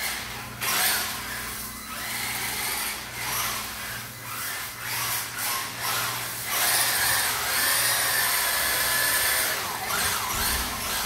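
Electric drive motor and gears of a WLtoys 10428-B2 1:10 4WD RC car whining, rising and falling in short bursts of throttle, then held steady for about three seconds past the middle, with the tyres skidding on a polished tile floor as it drifts.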